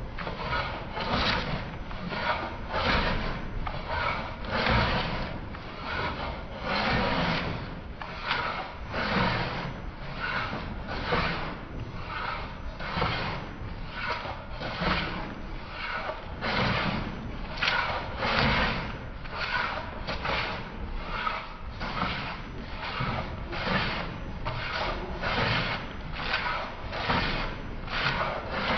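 Small hand block plane taking thin shavings off a piece of pale wood in quick short strokes, about two a second, each a dry scraping stroke of steel on wood. The planing takes out the ridges left by a thickness planer.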